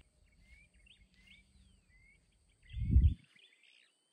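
Small birds chirping: a busy run of short, rising chirps. A brief low rumble about three seconds in is the loudest sound.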